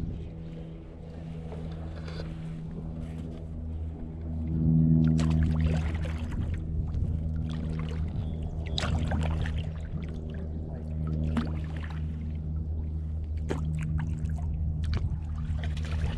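Water splashing and lapping around a kayak, with several short sharp splashes, over a steady low hum of several held tones that shift in pitch every few seconds.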